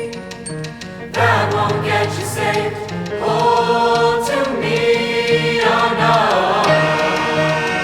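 Youth choir singing held notes over instrumental accompaniment, with a low note repeating underneath; the music swells about a second in.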